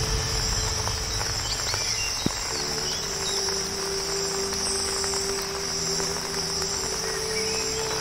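Steady high-pitched insect chorus with a few faint bird chirps. A low steady hum joins about two and a half seconds in.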